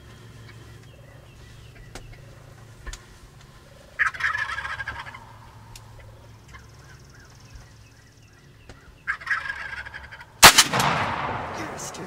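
Wild turkey gobblers gobbling twice, about four seconds in and again about nine seconds in, followed near the end by a single shotgun blast that echoes away.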